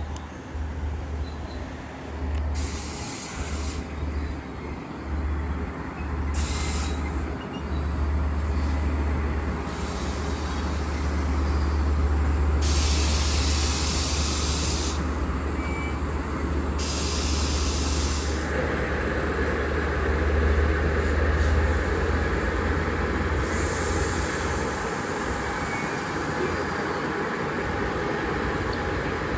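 Diesel passenger train at the station platform: a steady low rumble with short, sharp hisses of air released from its brakes, repeated several times. About two-thirds of the way through, a broader rushing noise takes over.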